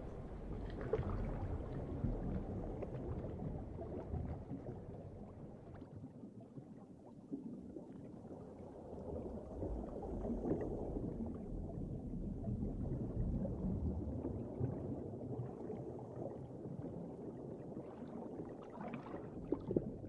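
Muffled underwater ambience: low, uneven water noise that swells and fades, dipping quieter for a couple of seconds around the middle.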